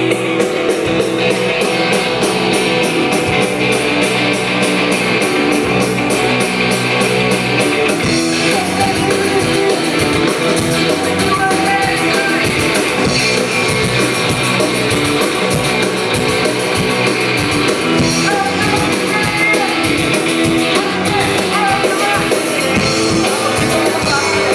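Live rock band playing a song, loud and steady, with guitar prominent. About eight seconds in the music changes, and the low end breaks into a regular beat.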